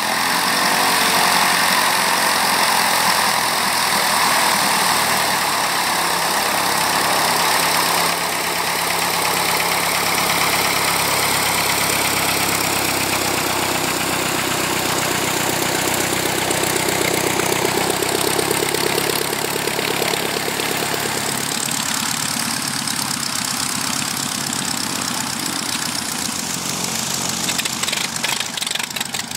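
Light aircraft piston engine of a De Havilland Moth Major biplane idling on the ground with the propeller turning; the engine note rises slowly in pitch for a while in the middle.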